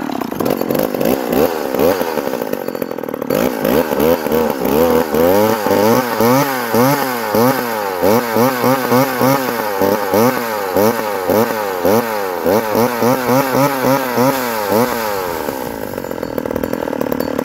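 McCulloch Power Mac 6 two-stroke chainsaw running just after starting, its throttle blipped over and over so the engine revs up and falls back about one and a half times a second, then settles to a steadier idle near the end.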